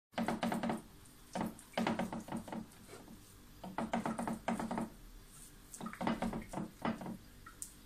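Hands patting and pressing wet minced chicken on a plate in four short bursts, with the plate rubbing and knocking on the countertop.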